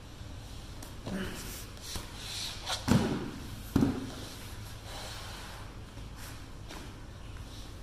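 Two thumps under a second apart, with rustling and shuffling just before them, as a person shifts and turns over on a foam roller on the floor.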